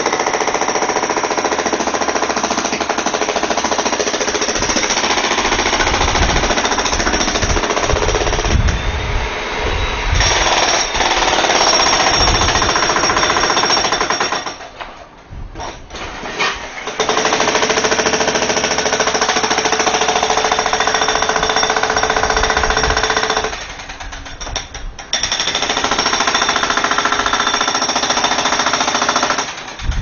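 Jackhammer hammering at close range in long continuous runs, stopping briefly twice, about halfway through and again a few seconds later.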